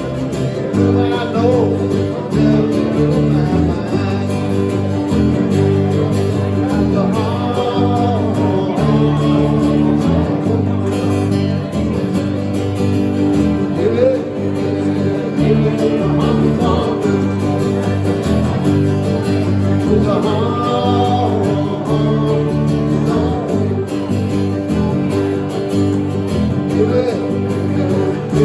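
A live country band playing a song: guitars strumming with a steady beat under a sung melody.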